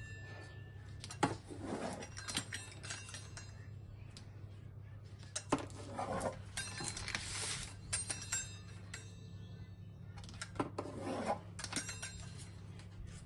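Kitchen utensils and dishes clinking and knocking on a worktop in scattered, irregular strikes, some of them ringing briefly like metal, over a steady low hum.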